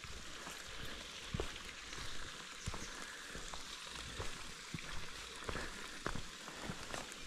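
Footsteps of hikers on a trail, with irregular crunches and crackles underfoot.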